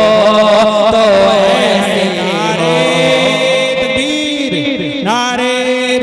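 A man singing a naat, a devotional Urdu poem, in a drawn-out melismatic style with long wavering notes. In the second half a steady held note sounds under quickly repeating falling vocal glides.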